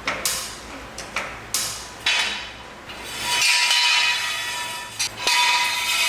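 A car being lowered off its jack: several sharp metal clicks and clinks in the first two seconds, then two longer hissing swells with a faint ringing tone.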